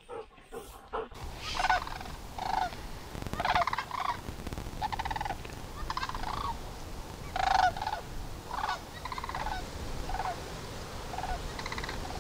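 A flock of sandhill cranes calling: rolling, trilled bugle calls, one after another and often overlapping, starting about a second in.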